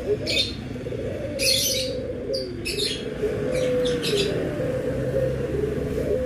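Ringneck dove (puter) cooing, a low call repeated several times, each phrase sliding down in pitch. Over it, other small birds chirp in short sharp bursts about half a dozen times.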